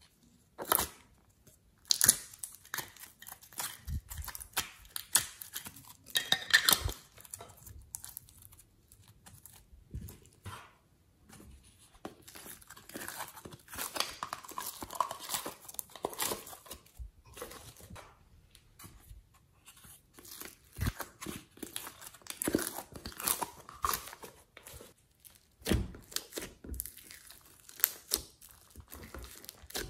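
Close-up handling sounds: a plastic clay container crinkling and clicking as it is opened, then soft clay being squeezed and pressed onto slime. An irregular run of crackles, clicks and short tearing noises.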